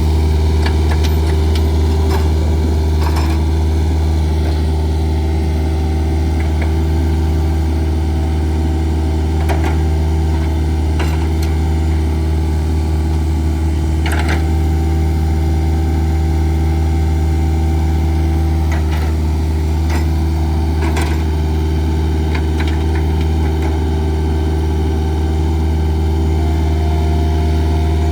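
Jacobsen 311 lawn mower's engine running at a steady, unchanging speed, with a few faint clicks now and then.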